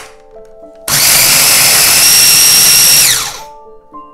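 Electric food processor grinding rolled oats into oat flour. The motor runs loud and even for about two seconds, then winds down with a falling whine as it stops.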